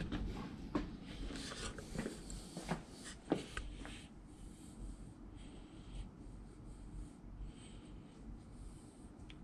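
A few light clicks as rocker arms are handled on a steel bench, then soft scratching strokes of a marker being written on them.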